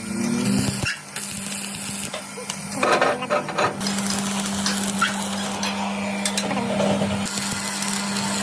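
Stick welding: the arc crackling and sizzling steadily over the welding machine's constant low hum.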